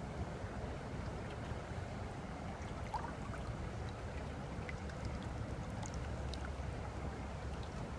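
Steady rushing of water from a small river waterfall, a continuous even wash with a deep low rumble beneath it. A few faint short ticks and chirps sit over it around the middle.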